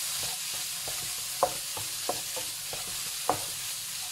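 Chopped vegetables sizzling in a wok as they are stirred with masala, a steady hiss under irregular clicks and scrapes of the stirring utensil against the pan. Two louder knocks come about a second and a half and three seconds in.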